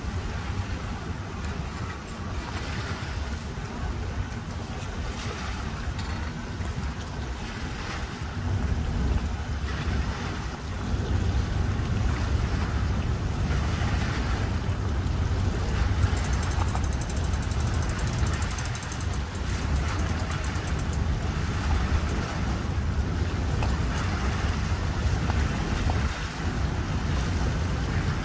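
Wind rumbling on the microphone over small waves splashing and lapping against a concrete boat ramp and around a pickup truck backed into the water. The wind gets louder about eleven seconds in.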